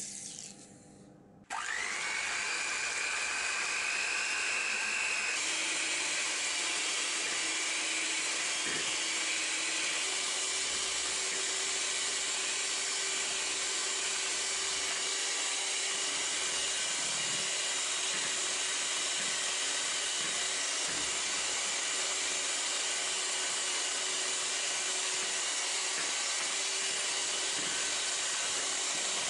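Electric mixer switched on about a second and a half in, its motor whine rising as it spins up, then running steadily.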